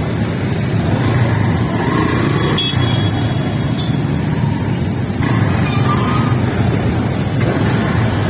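Steady road noise of a motorcycle ride picked up by a phone's microphone: a dense low rumble of wind and engine that covers everything else. A few faint short tones break through above it about three seconds in and again near six seconds.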